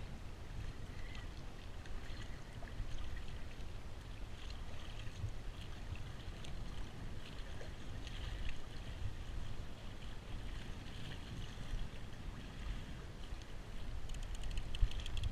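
Water lapping and splashing against a kayak's hull as it moves across choppy sea, with wind buffeting the microphone as a steady low rumble.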